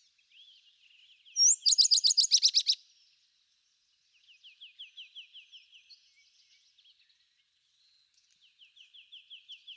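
Sparrow singing: a loud, rapid run of high chirps about a second and a half in, then two quieter trills of fast, repeated down-sliding notes.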